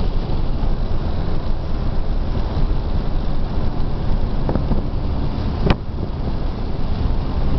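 Car driving along a street: engine running with heavy wind rumble on the microphone. One sharp click about three-quarters of the way through.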